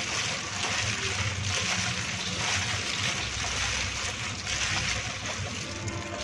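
Gloved hands tossing dressed pennywort leaves in a stainless steel bowl: continuous wet rustling of leaves and crinkling of thin plastic gloves.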